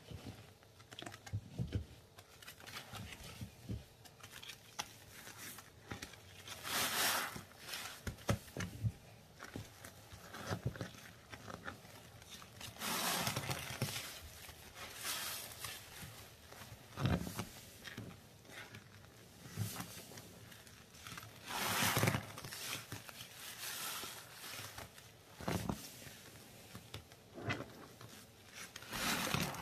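Sponges soaked in thick, bubbly paste squeezed and pressed by gloved hands: wet squishing with a bubbly crackle, coming in irregular bursts, the louder squeezes every few seconds.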